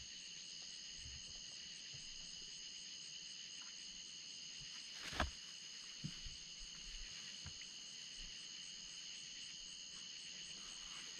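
Steady high-pitched chorus of night insects. There is one sharp knock about five seconds in and a couple of faint taps just after.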